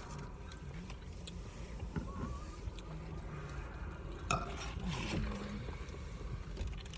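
Cold drinks being handled and sipped: a few light clicks and rattles of cups and ice over a low steady hum, with faint low voices in the background.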